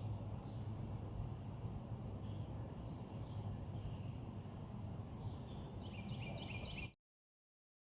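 Background ambience with a steady low rumble and faint, scattered bird chirps; near the end a bird gives a quick run of short repeated notes, then the sound cuts off abruptly about seven seconds in.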